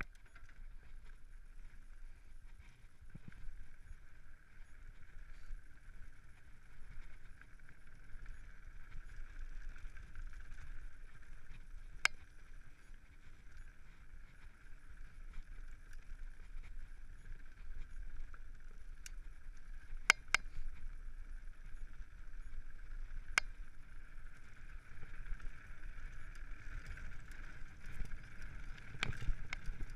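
Mountain bike ridden fast down a gravel forest trail: a steady rush of tyre, drivetrain and wind noise, broken by a few sharp knocks from bumps, two of them close together about two-thirds of the way through.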